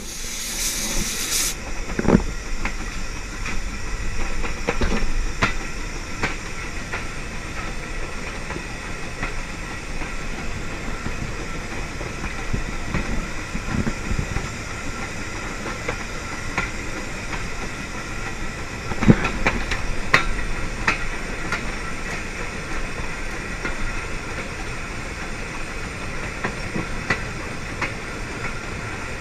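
USATC S100 0-6-0 steam tank locomotive running along the line, heard close up: a steady hiss of steam and running noise, with irregular knocks and clicks from the wheels and rail joints, the loudest about two seconds in and again about two-thirds of the way through.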